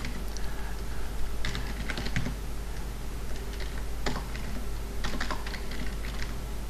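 Computer keyboard typing: a few short runs of keystrokes with pauses between them.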